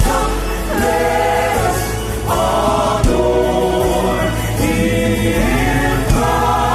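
Gospel choir singing held chords over instrumental backing, with a sharp beat about every three seconds.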